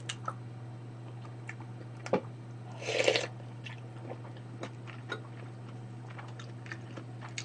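A person chewing and eating close to the microphone, with soft mouth clicks and a metal spoon tapping in a bowl. One brief, louder noisy sound comes about three seconds in.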